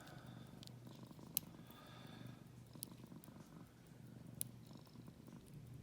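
A cat purring steadily and faintly, with three or four short, sharp clicks from lock picks working a padlock.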